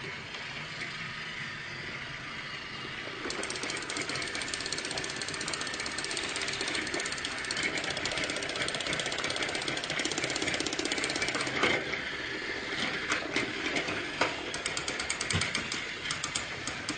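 A motorized toy train running on plastic track: a steady rattling buzz of its small motor and wheels, which gets louder about three seconds in. Near the end there are a few sharper clicks and knocks.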